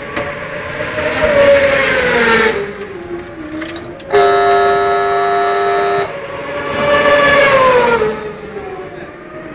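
Supersport racing motorcycle engines at high revs. Twice a rising, howling note swells and then falls away in pitch, and between them a steady high-revving note holds for about two seconds, starting and stopping abruptly.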